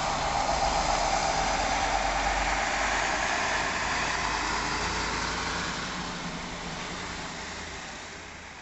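Street traffic: a heavy dump truck's engine running as it passes, over steady road noise. The whole sound fades slowly away over the last few seconds.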